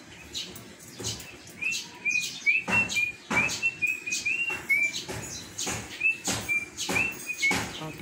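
A bird chirping: a run of short, high chirps, about two or three a second, starting about a second and a half in, with a brief pause past the middle.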